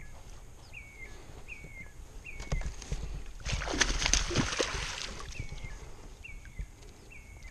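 Hooked bass thrashing and splashing at the water surface for about a second and a half, starting about three and a half seconds in. Around it a bird repeats a short falling chirp over and over.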